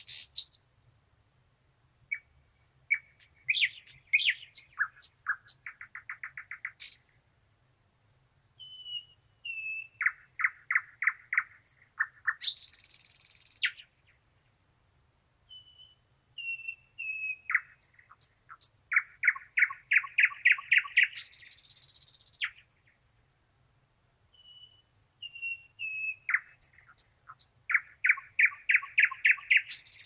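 Thrush nightingale singing in four phrases with short pauses between. Each phrase has a few whistled notes, a fast dry clicking rattle, and then a harsh hissing note.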